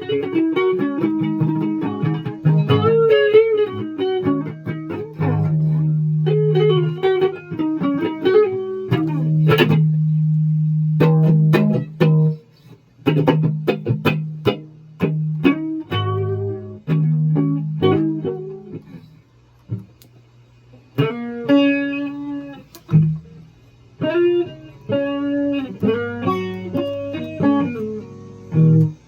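A guitar played solo, a song with held low notes under a picked melody, breaking off briefly twice.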